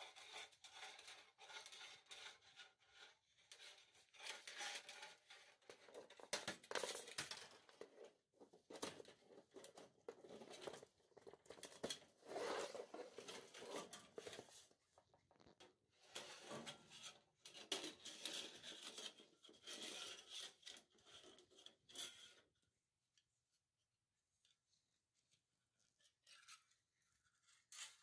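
Flat steel sewer rod scraping and rattling as it is fed by hand through the cleanout pipe: irregular rasping strokes with small clicks, stopping about three quarters of the way through.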